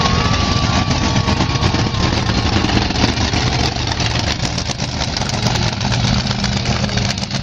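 Monster truck's engine running steadily, a low drone without marked revving.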